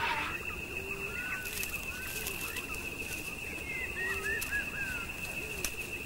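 Wild birds calling: repeated short chirps in quick little phrases over lower short calls, with a steady high thin whine running under them.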